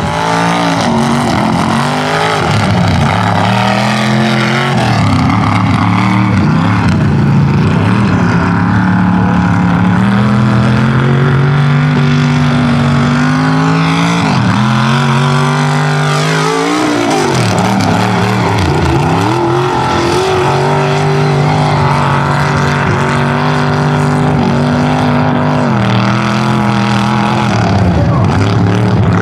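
Mega truck engines running hard at high revs, the pitch repeatedly climbing and dropping as the drivers work the throttle through the run.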